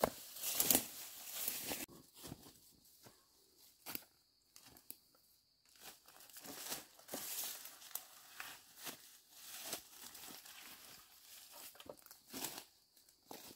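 Footsteps rustling and crunching through dry leaf litter and brushing past ferns, in irregular bursts, loudest in the first couple of seconds with a lull a few seconds later.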